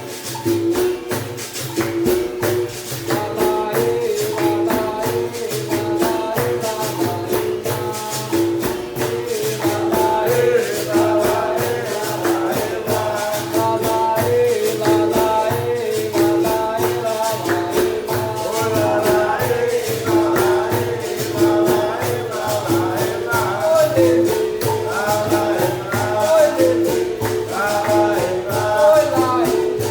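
Capoeira music played live: berimbau, pandeiro and caxixi rattle keeping a steady rhythm, with voices singing over it.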